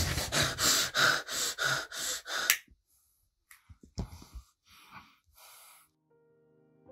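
A man breathing hard in quick, loud gasps, about three a second, for the first two and a half seconds. Then come slower, softer breaths as he smokes a cigarette, with a single click about four seconds in. Faint piano music comes in near the end.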